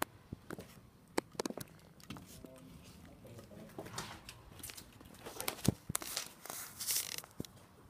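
Footsteps and handling noise from someone walking with a handheld camera: scattered clicks and knocks with bursts of rustling, busier and louder in the last few seconds.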